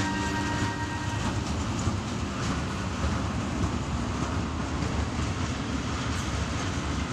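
Train wagons rolling along the track: a steady rumble with faint rail clatter.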